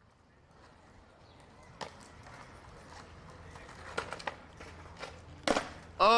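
Skateboard on concrete: a few sharp clacks of the board popping and landing on the pavement, about 2 s in, twice near 4 s and louder about 5.5 s in, over outdoor background noise. Right at the end a loud, steady, held tone starts.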